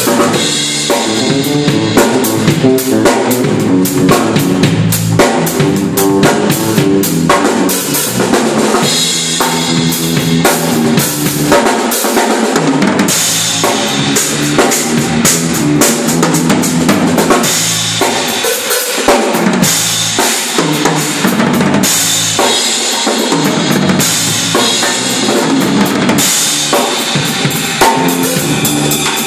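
Drum kit and electric bass guitar playing a groove together: busy kick, snare and tom strokes over a moving bass line. Cymbal wash swells in and out in stretches of a few seconds.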